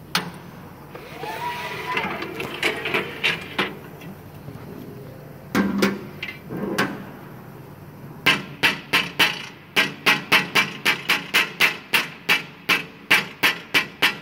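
Rubber mallet tapping a metal die plate on a die-cutting machine's bed, a fast, even run of about three to four blows a second from about eight seconds in, seating the plate. Before that, scattered metal clatter and a few knocks as the plate and its fittings are handled.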